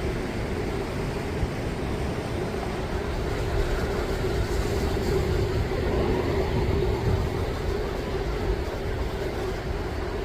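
Heavy winter sea surf with wind buffeting the microphone: a steady, rumbling wash of noise that swells slightly midway, with a steady low hum running under it.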